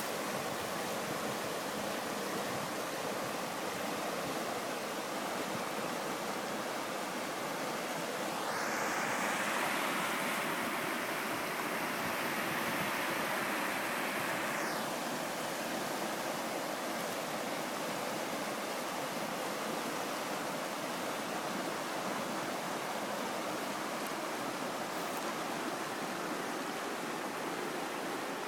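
River water rushing over a shallow stony rapid: a steady rush that grows brighter and a little louder for several seconds partway through.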